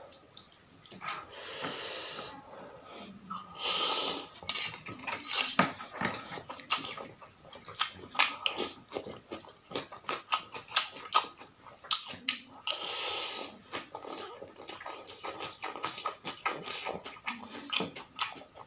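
Eating noodle soup: a utensil clinks and taps against the bowl many times, with a few longer slurps about a second in, around four seconds and past the middle.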